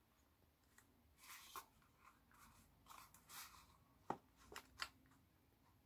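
Faint handling of a plastic craft circle punch and a folded card box while the punch is lined up on the box's edge: soft rustles of card and small plastic clicks, with three sharper clicks a little after four seconds in.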